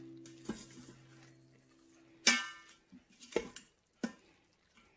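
A few sharp clinks of cutlery against dishes, the loudest about two seconds in, which rings briefly. Soft background music fades out over the first two seconds.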